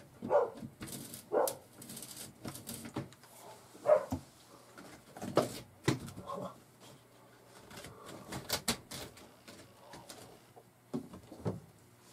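A dog barking a few short times, mostly in the first four seconds, with scattered knocks and clicks from hand-tool work on a metal bar mounted on the ceiling.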